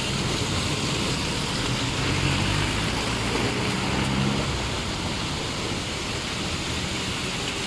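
Heavy rain pouring steadily, with vehicles driving past on the flooded-wet road. A passing vehicle's engine hum rises through the first half and fades out about four and a half seconds in.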